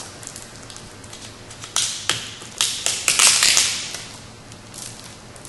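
Clear plastic wrapping crinkling as a wooden picture frame is unwrapped and handled on a table. Two sharp taps come about two seconds in, then a second or so of crinkling.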